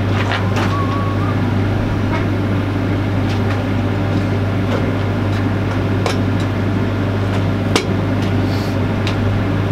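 A machine runs with a steady low hum throughout. Light metal clicks and taps from the flange and two-hole pins being fitted are scattered over it, the sharpest about eight seconds in.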